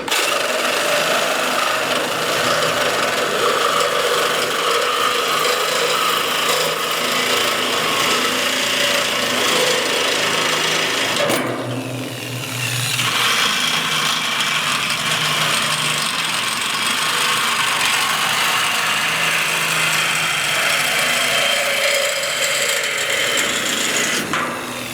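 Power tool cutting through a steel bar, with a steady grinding, sawing noise. About halfway through it eases off, its pitch falling, then picks up again.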